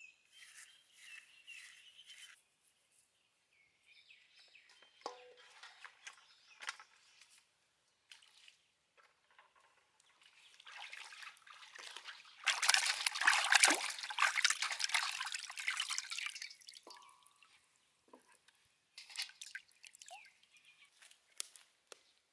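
Pig feet being scrubbed with a steel-wool pad and washed by hand in a metal bowl of water: soft wet scrubbing and dripping in short spells, then several seconds of splashing and sloshing a little past halfway, the loudest part.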